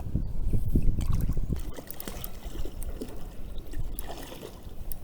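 Wind buffeting the microphone for the first second and a half or so, then water trickling and lapping with scattered small splashes and clicks.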